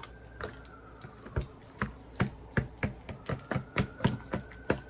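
Boiled sweet potatoes being mashed in a bowl: a run of uneven knocks of the utensil against the bowl, about two to three a second.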